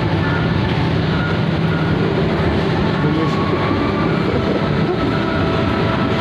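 Steady running rumble of the Argo Cheribon passenger train heard from inside the coach, wheels rolling on the rails as the train enters a station.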